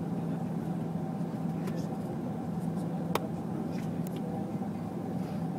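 Steady low jet-engine hum of airliners at an airport, with a faint steady whine, and a sharp click about three seconds in.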